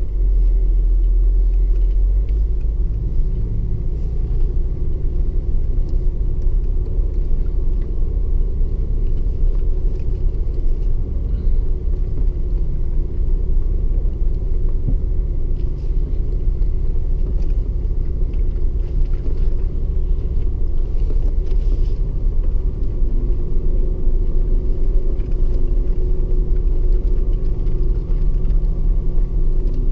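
Toyota Land Cruiser HDJ80 driving slowly over a rough gravel track, heard from inside the cab: a steady low rumble of its 4.2-litre straight-six turbo diesel and the tyres on the stones.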